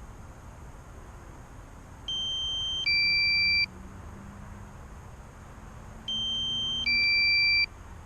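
Electronic two-note alert beep, a higher note stepping down to a lower, louder one, sounded twice about four seconds apart from the drone's flight app over a steady background hiss.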